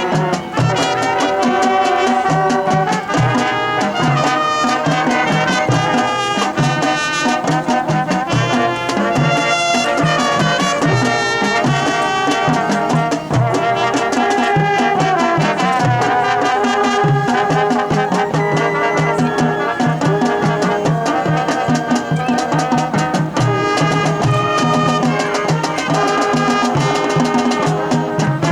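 A high school marching band playing a brass-led show tune with trumpets and trombones over steady percussion, in a Latin style.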